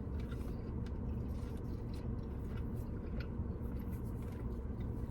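A person chewing a mouthful of smoked beef burnt end dipped in barbecue sauce, with faint wet mouth clicks over a steady low background hum.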